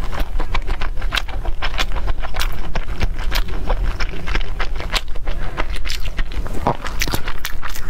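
Close-miked chewing: a dense, irregular run of small crackling clicks as a mouthful is chewed with the lips closed.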